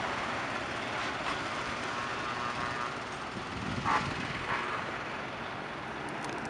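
Heavy trucks' diesel engines running as a parade of trucks drives by, a steady rumble of engine and road noise, with a couple of short knocks about four seconds in.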